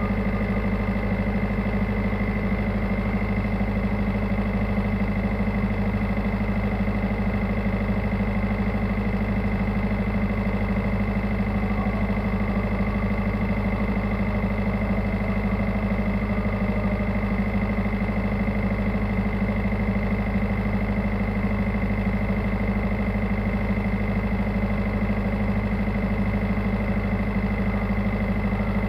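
Tugboat engine running steadily: an unchanging drone with a thin steady whine above it.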